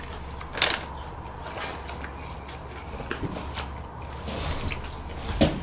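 A plastic bag of seasoned laver flakes crinkles as it is shaken out over a pan about half a second in. A few soft clicks and chewing follow, over a low steady hum.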